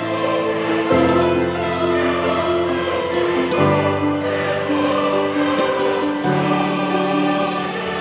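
Background music of slow, sustained chords that change every two to three seconds.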